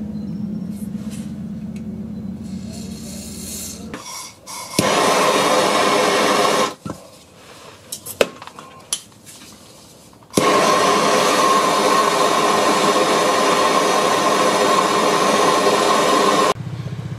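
Handheld gas blowtorch flame hissing steadily while it heats a seized, corroded air-con pump bolt, in two stretches: a short one and a longer one of about six seconds, each starting and stopping abruptly. A few sharp clicks fall in the quieter gap between them, and a low steady hum runs under the first few seconds.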